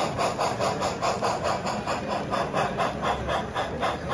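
Sound-equipped HO scale model steam locomotive chuffing through its onboard speaker: a quick, even rhythm of several hissing exhaust beats a second as the engine runs along the track.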